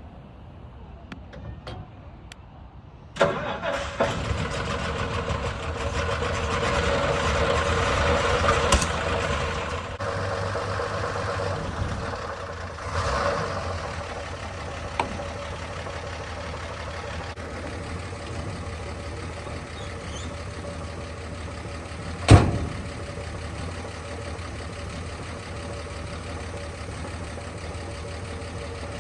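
1964 Ford F100 pickup's engine catching and starting about three seconds in, running faster and louder for several seconds, then settling to a steady idle. A single sharp bang about twenty-two seconds in.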